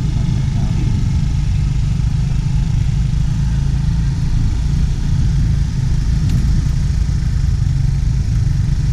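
Motor scooter ridden at low speed along a dirt track, its small engine running with a steady low rumble.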